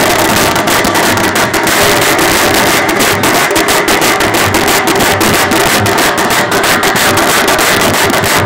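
Loud, fast drumming from a group of stick-played side drums with white heads, beaten together in a dense, unbroken rhythm.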